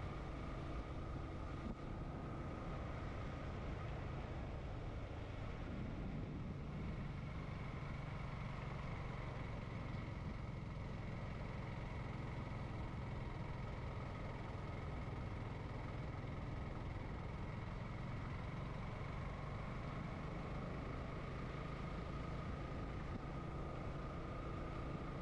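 Motorcycle engine running at a steady cruising speed, heard from a helmet-mounted camera, with a steady rush of wind and road noise under a constant engine drone.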